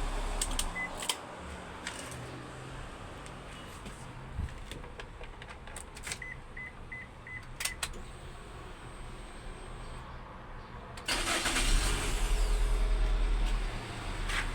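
Perodua Myvi engine switched off, then key and switch clicks with short dashboard beeps, a single one and then four in a row. About eleven seconds in the starter cranks for a couple of seconds and the engine starts and runs, showing the car now starts with the replacement immobilizer box.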